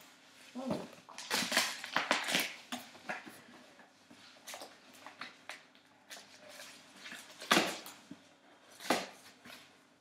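Cardboard box and foam packing rustling and scraping in irregular bursts as an espresso machine is worked loose from its tight-fitting box. The loudest scrapes come about seven and a half and nine seconds in.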